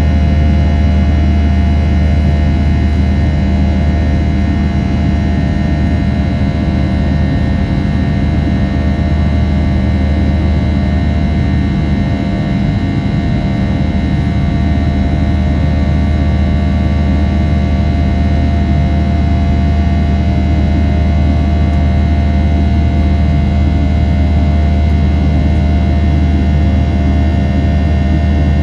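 Steady drone of a Boeing 737-700's CFM56-7B jet engines heard inside the passenger cabin, a deep hum with a layer of steady whining tones above it.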